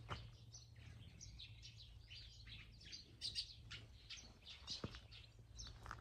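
Birds chirping faintly, with many short high calls repeated throughout.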